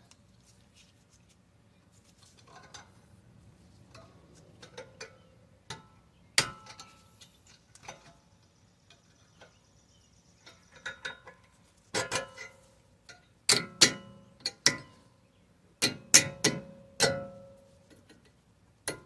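Irregular sharp metallic clicks and clinks, some in quick clusters and a few ringing briefly, as tools and metal parts such as bolts are handled during reassembly after a brake pad change.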